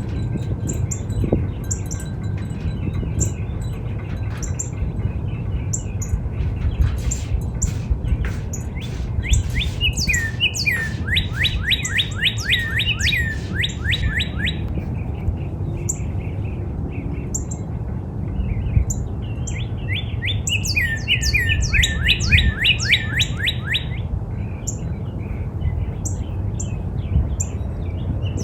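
Northern cardinal singing: fast series of repeated downslurred whistles, one at the start, a long run about a third of the way in and another about two-thirds in. Short, high, thin chips continue between the phrases over a steady low rumble.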